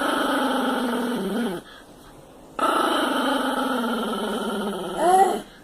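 Belgian shepherd dog growling in two long, rumbling bouts that sound like a revving motorbike, with a short pause between them. The second growl ends in a brief rising-and-falling whine.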